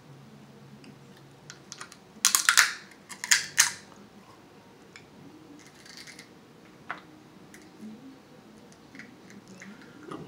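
King crab leg shell being cracked and broken apart by hand close to the microphone. Two loud bursts of crackling snaps come about two and three and a half seconds in, with lighter clicks of shell being picked at afterwards.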